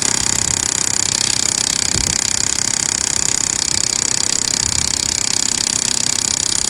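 A power tool running steadily with a fast, even hammering pulse and a high whine, cutting in abruptly at the start.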